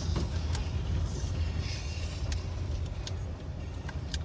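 Steady low rumble of a car with its engine running, heard from inside the cabin, with a few short sharp clicks scattered through it.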